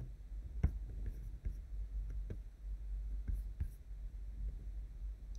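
A few faint, scattered clicks from someone working a computer, over a low steady hum.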